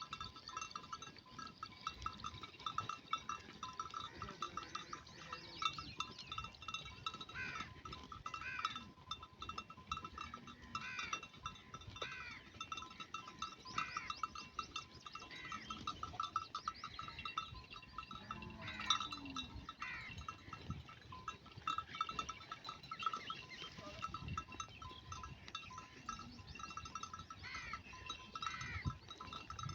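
Grazing flock of sheep with small bells jingling steadily and a short, high call repeating about once a second.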